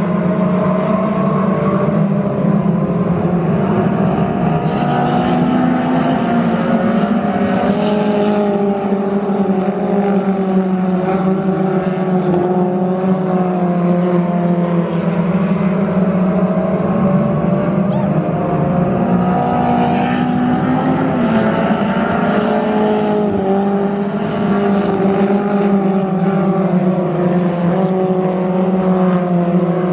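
A pack of Thunder Car class dirt-track race cars, Mustang-bodied, racing together. Several engines sound at once, their pitches rising and falling as the cars come off and back onto the throttle around the oval.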